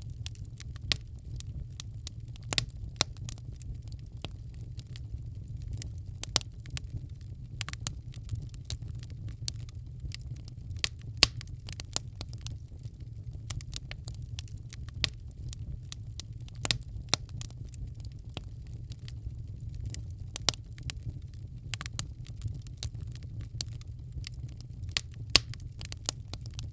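Wood fire burning in a fireplace: a steady low rumble of the flames with irregular crackles and sharp pops of the burning logs.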